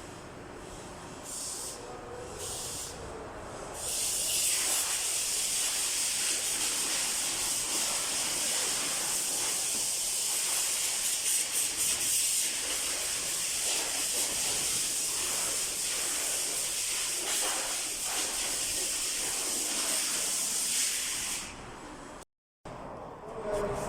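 A steady high hiss of a pressurised jet, such as a cleaner spray or compressed air. A few short puffs come first, then about four seconds in a long continuous blast begins, which cuts off sharply near the end.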